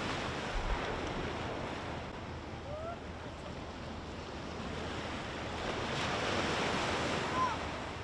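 Small waves breaking and washing up a sandy beach, a steady wash of surf that swells a little near the end.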